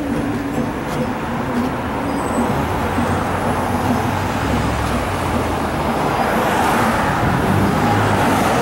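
Road vehicle engine running amid traffic noise, growing a little louder toward the end.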